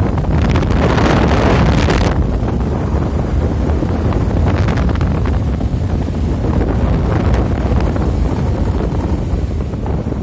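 Wind buffeting the microphone on a moving motorcycle over a steady low rumble of the bike and road, with a stronger gust from about half a second to two seconds in.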